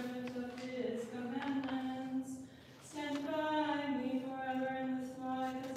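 Unaccompanied Orthodox liturgical chant: a voice sings a hymn in long held notes that glide between pitches, breaking for a breath about two seconds in, then resuming on a higher note.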